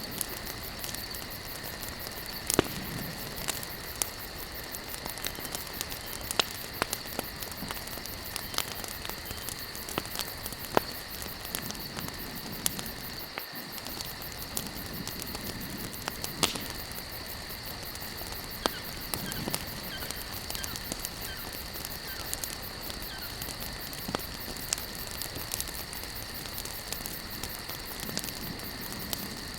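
Wood campfire burning: irregular sharp pops and crackles, roughly one every second or two, over a steady hiss, with a steady high-pitched drone in the background.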